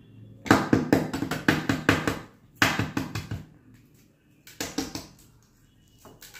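Hard-boiled eggshells being cracked by quick tapping on a hard surface before peeling: three bursts of rapid taps, the first lasting over a second, the others shorter.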